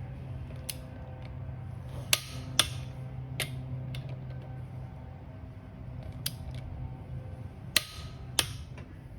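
Click-type torque wrench tightening lug nuts: a series of sharp separate metallic clicks, some in pairs, over a steady low hum.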